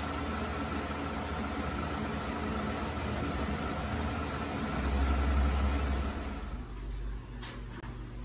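Steady mechanical hum with a low rumble that swells about five seconds in, then drops to a quieter, thinner hum about six and a half seconds in.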